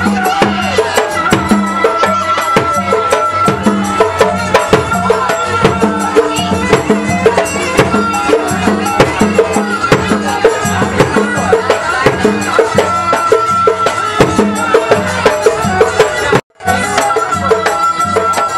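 Traditional Malay silat music: gendang drums beating a fast, steady rhythm under a recurring high held melody note. The music drops out for a moment near the end, then resumes.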